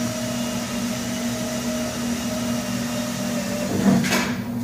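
Hendricks CNC router running through its zero return, homing its axes: a steady machine hum and whine over a hiss. About four seconds in comes a short loud rushing burst, after which the high hiss cuts off.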